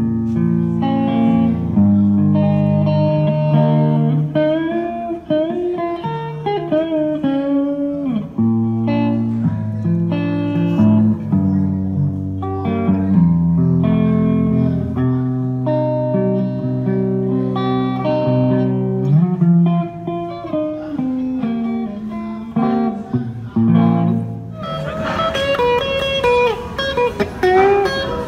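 Electric guitar played solo: a lead line of held and bent notes over lower notes. About 25 seconds in, the tone turns brighter and busier as a new passage starts.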